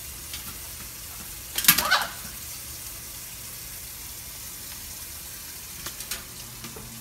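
Kitchen tap running steadily into a stainless steel sink, a constant hiss. About two seconds in there is one short, loud burst of noise as a blue-and-gold macaw scrambles and flaps at the sink, with a few faint taps near the end.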